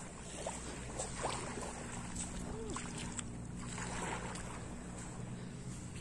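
A steady low engine hum over a wash of wind and sea noise, with a few faint short sounds.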